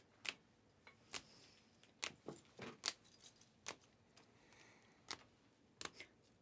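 Sleeved trading cards being flipped through one by one in the hand. Each card slides off the stack with a short, sharp plastic click, about ten at uneven intervals.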